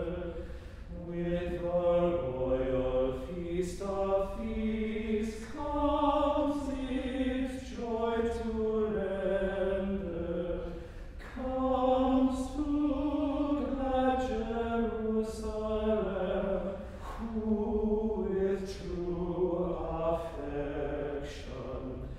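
Small men's choir singing a slow unaccompanied chant in parts, several notes held together and moving in phrases with brief breaths between them.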